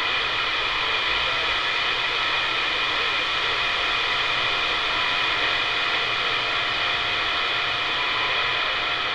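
CB radio receiver hissing with steady band static on channel 28, with faint steady whistles in the noise and no station coming through.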